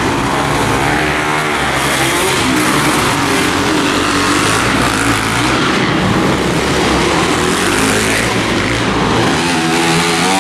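Several motocross bikes racing, their engines revving up and down with the throttle through corners and jumps, one bike's pitch overlapping another's.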